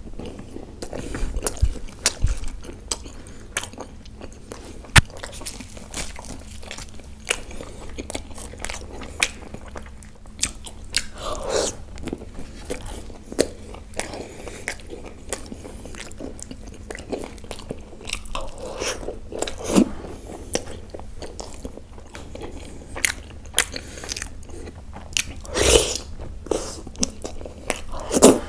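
Close-miked chewing and biting of naan dipped in butter chicken gravy, eaten by hand, with many wet clicking mouth sounds. A few louder, longer mouth sounds come near the middle and again near the end.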